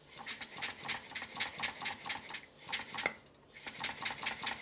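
Stuart Models beam engine running on compressed air, started by a turn of the flywheel: a rapid, even train of sharp exhaust puffs and light metallic clicks, breaking off briefly about three seconds in and then picking up again. Its valve timing is not yet correct.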